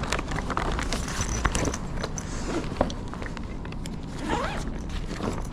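Footsteps with scattered scuffs and short clicks as people walk about on a hard floor.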